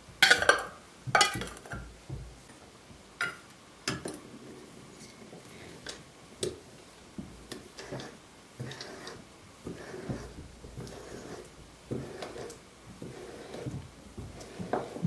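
Metal canning lids and glass jars clinking, with several sharp knocks in the first four seconds, then quieter irregular clicks and scraping as a hand seaming key is worked around a lid to seal the jar.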